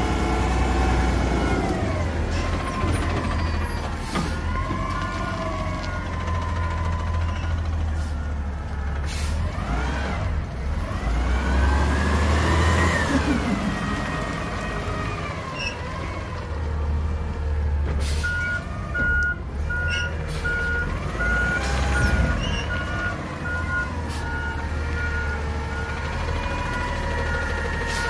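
Side-loader garbage truck working its pickup: the diesel engine revs up and down several times as the hydraulics run, with a few sudden hisses and clatters. A regular warning beep starts about two-thirds of the way in.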